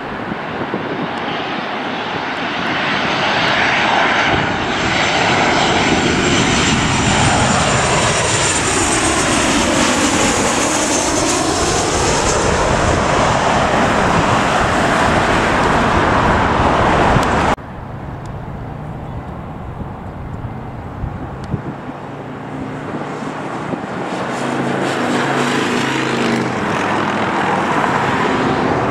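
A Southwest Boeing 737 on landing approach passes low overhead with a loud jet-engine rush that sweeps down and back up in pitch as it goes over, then cuts off suddenly a little past halfway. After that a Delta-liveried Embraer regional jet on approach is heard, its engines quieter and growing louder, with steady humming fan tones.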